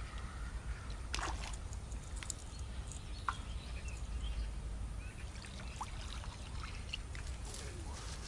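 Lakeside outdoor ambience: a steady low wind rumble on the microphone with faint water sounds, and short bird chirps and small clicks now and then.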